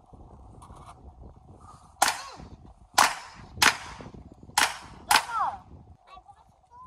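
Five handgun shots fired in an uneven string, about half a second to a second apart, each followed by a short echo.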